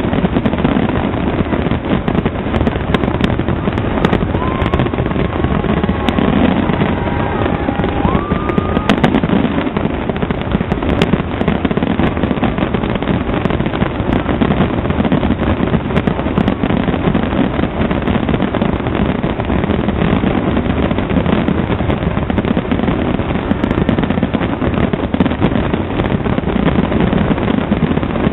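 Fireworks display going off continuously: a dense, unbroken rumble of bursts and crackling. A few short whistling tones come through about five to nine seconds in.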